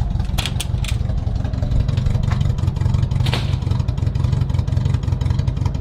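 Car engine running with a steady low drone, with a few sharp clicks near the start and one about three seconds in.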